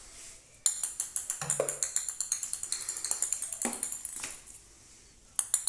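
A small plastic cat-toy ball rattling and jingling with rapid clicks as it rolls and is batted across a tiled floor. The clicking stops a little after four seconds and starts again near the end.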